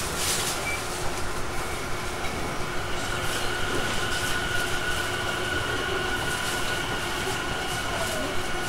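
Inside a Tobu 50050-series electric train car running toward its terminal stop: a steady rumble of wheels on rail with regular clicks over the rail joints. A few seconds in, high steady whining tones set in.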